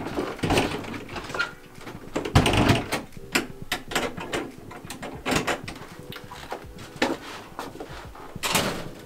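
Footsteps, knocks and clothing rustle at a doorway on a wooden porch, with a heavier door thump about two and a half seconds in and another rustle near the end.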